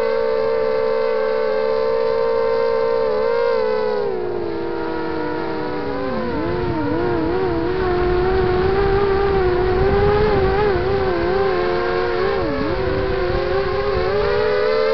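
Brushless motors and propellers of a QAV250-size quadcopter (Emax 2300kv motors) whining, picked up by its onboard camera. The pitch holds steady at first, then about four seconds in it drops and splits into several wavering tones as the throttle changes, with rushing air underneath, and rises again near the end.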